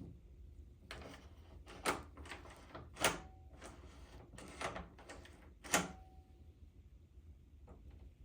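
Door knob and latch being worked: a series of sharp clicks, the loudest about two, three and six seconds in, two of them followed by a brief metallic ring.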